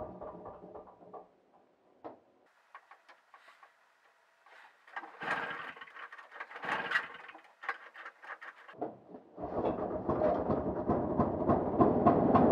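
1968 Polaris Mustang's two-stroke engine running, then dying away in the first second or so, followed by scattered clicks and rattles. About nine and a half seconds in it fires again and runs with a fast, even pulse that grows louder.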